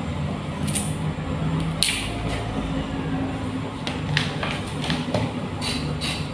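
Kitchen knife scraping the skin off a carrot: a few separate scrapes, then quicker repeated strokes near the end, over a steady low hum.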